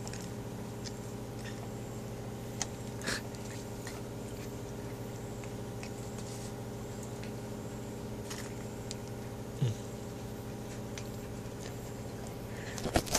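A steady hum with a few faint clicks and scuffs from puppies moving and mouthing on concrete, and a quick cluster of louder clicks near the end.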